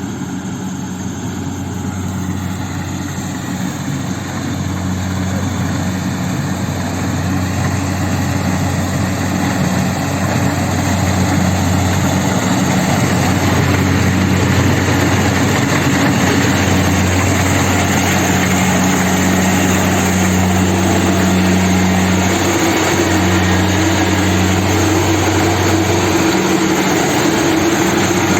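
Kubota combine harvester running steadily with a low engine hum over a wide machinery noise, growing louder over the first dozen seconds, then holding level.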